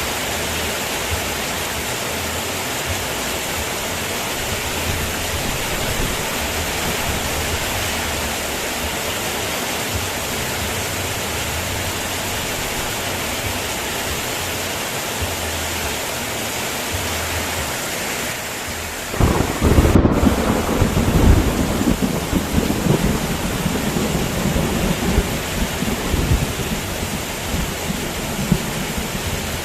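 Steady heavy rain. About nineteen seconds in, a sudden loud clap of thunder breaks in and rolls on as a deep, uneven rumble for about ten seconds under the rain.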